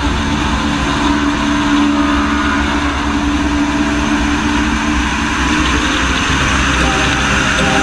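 Aircraft engine noise in flight: a loud, steady running noise with a constant low hum through it.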